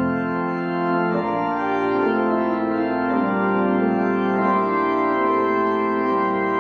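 Organ voluntary closing the service: slow, held chords that change every second or so. The deep bass note drops out within the first second.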